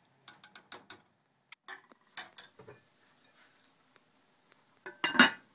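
Light clinks and taps of a spatula against an amber glass cooking pot, then about five seconds in a short clattering clink, the loudest sound, as a glass lid is set down onto the glass pot.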